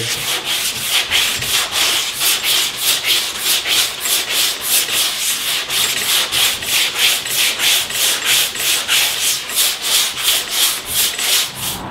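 Hand sanding block with sandpaper rubbing back and forth over cured body filler on a metal panel, in quick, even strokes of about three a second: blocking the filler repair down level.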